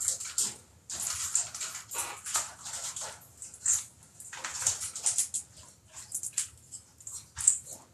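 Pet parrots in an aviary calling and chattering: many short, high-pitched squeaks and chirps overlapping in an irregular stream.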